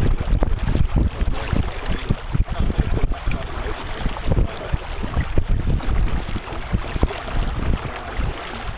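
Wind buffeting the microphone aboard a boat under way: an uneven, gusting low rumble over a steady hiss of wind and water.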